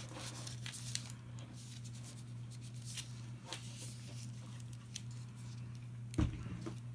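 Candy wrappers and packaging crinkling and tearing as they are handled, with scattered light clicks over a steady low hum, and a dull thump about six seconds in.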